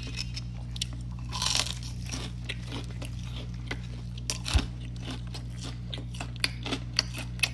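Close-up chewing of crispy fried chicken tenders: a run of small crackling crunches, with a louder crunching bite about a second and a half in, over a steady low electrical hum.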